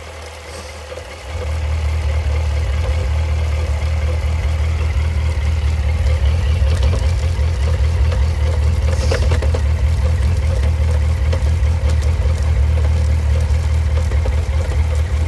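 Suzuki GSX1250FA inline-four engine running with the rear wheel turning in gear on the centre stand, the slack drive chain bouncing and slapping against the swing arm: the chain is beyond its slack spec and needs adjusting. The engine note gets louder about a second in and then holds steady.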